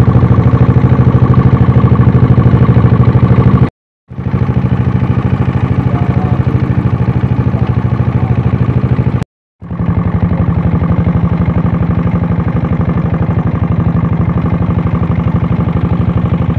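A boat's engine running loudly and steadily with a fast, even pulse. The sound cuts out abruptly twice, about four seconds in and again about nine and a half seconds in.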